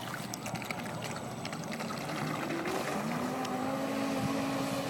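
A 12-cell electric RC boat's motor whining as the boat runs: a steady tone that glides up in pitch about two and a half seconds in and then holds, growing slightly louder.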